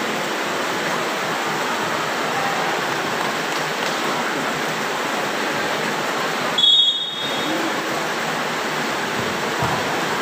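Steady, even background hiss of the open-air volleyball venue. About seven seconds in comes one short, high whistle blast, as from a referee's whistle between rallies.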